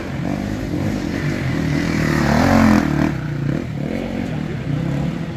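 Enduro dirt bike engine revving up and down under load, loudest about two and a half seconds in, then dropping back.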